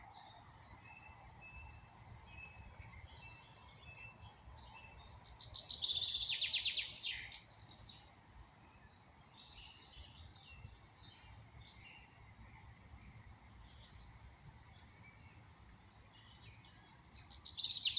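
A songbird singing a loud, fast trill of about two and a half seconds, twice: once about five seconds in and again near the end, with fainter chirps and calls from other birds in between.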